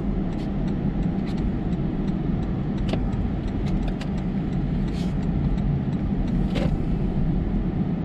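Steady engine and road rumble of a car driving, heard from inside the cabin, with a few faint clicks.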